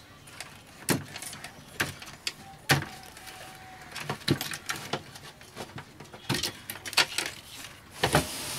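Wire-harness connectors being pulled one by one from the plug sockets on a CRT television's main circuit board: irregular sharp plastic clicks and knocks, about seven of them, with handling of the cables in between.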